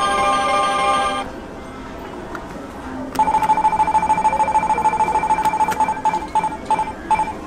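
Candy vending machine's electronic beeper: a short chime of several tones, then a steady high beep that breaks into short repeated beeps, about two a second, near the end, with scattered clicks.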